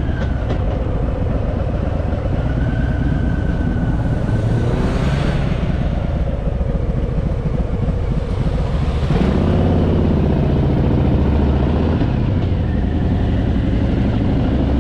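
Harley-Davidson Fat Boy's V-twin engine running under way, its note rising and strengthening about nine seconds in as it pulls harder. A brief swell of road noise comes about five seconds in.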